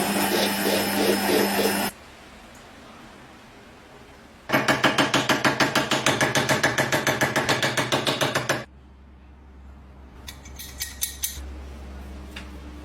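Workshop tool work on metal. A power tool runs loudly and stops about two seconds in. After a pause, a fast, even run of strokes comes at about six a second for some four seconds, followed by a few light metallic clicks.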